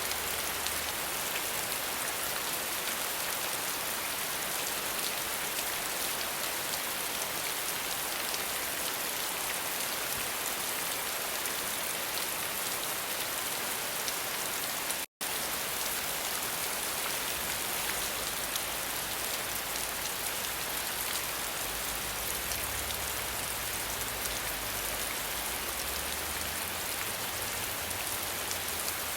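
Steady rain falling: a dense, even hiss speckled with many small drop impacts. It cuts out completely for an instant about halfway through.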